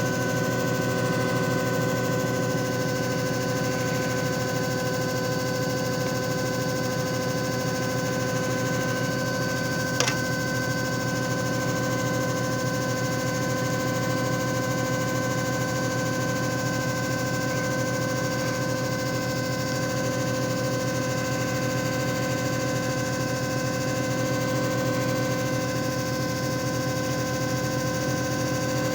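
JFJ Easy Pro disc repair machine running: a steady motor hum and whine with several constant tones. A single sharp click comes about ten seconds in.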